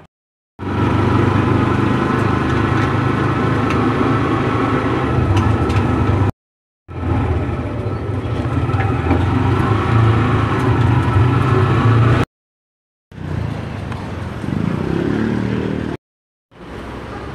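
A motor vehicle's engine running steadily, heard from inside the vehicle, in stretches that cut off abruptly into brief silences. The last two stretches are quieter.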